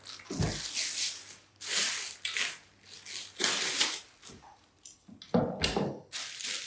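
Plastic bag rustling and crinkling in bursts as a steel mounting arm is pulled out of it, with a few dull knocks of metal parts set down on a wooden table, one near the start and two about five and a half seconds in.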